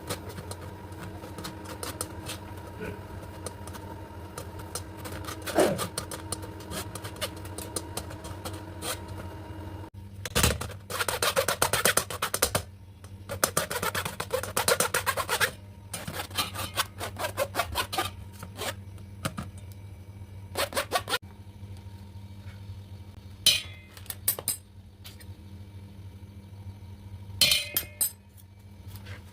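Kitchen utensils scraping and clinking against cookware, with scattered knocks and a longer spell of steady scraping in the middle, over a constant low hum.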